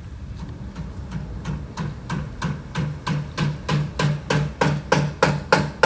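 Hammer blows on plywood panels as workers board up windows and doors: a steady run of sharp strikes, about three a second, growing louder.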